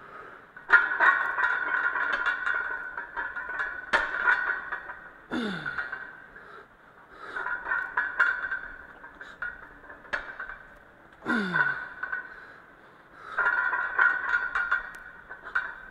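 Heavy barbell back squat reps: the loaded iron plates clink and rattle on the bar in a bout every few seconds as it moves. Twice, a short hard grunt drops in pitch.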